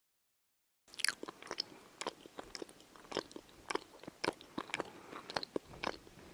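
Crunchy chewing sound effect: irregular sharp crunches, roughly three or four a second, starting suddenly about a second in after total silence.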